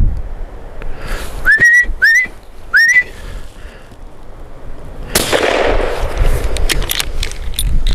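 A hunter whistles three short rising notes in quick succession, the signal hunters use to make a moving deer stop and stand for a shot. About five seconds in a sudden burst of noise follows, then a few sharp clicks.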